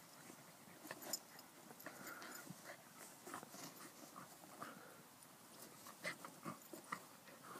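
Two dogs, a Jack Russell terrier and a black-and-white collie-type dog, play-wrestling on grass: faint, short, irregular dog noises and scuffling.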